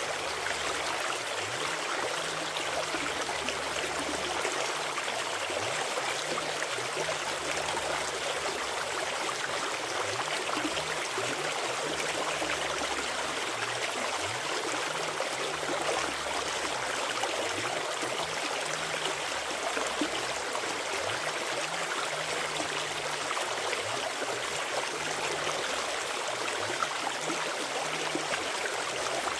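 Forest stream flowing over rocks: a steady, even rush of running water.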